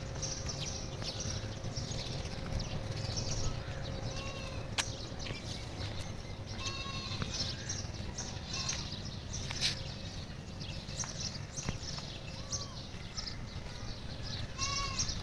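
A few short bleats from livestock, four or five separate calls, over steady background noise with scattered clicks.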